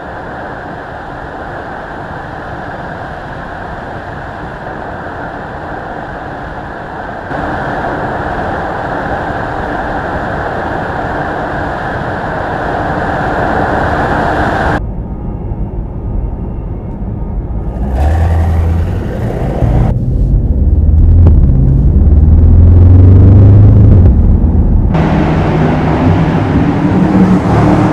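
Mercedes-AMG S63 E Performance's 4.0-litre twin-turbo V8 running and revving, heard in a string of short clips that cut abruptly from one to the next. The deep engine note is loudest about two-thirds of the way through.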